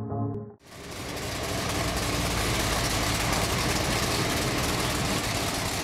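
De Tomaso Pantera's Ford 351 Cleveland V8 running steadily, starting just after music cuts off about half a second in.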